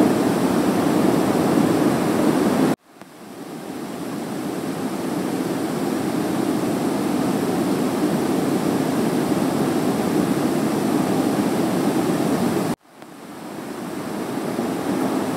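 Steady rushing room noise, strongest in the low-middle range, that cuts out abruptly twice, about three seconds in and near the end, fading back in over a second or two each time.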